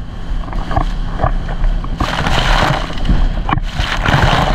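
23-foot sport-fishing boat running at speed through choppy sea: a steady engine drone under the rush of water along the hull. Two loud surges of splashing spray come about two seconds in and again near the end, with wind buffeting the microphone.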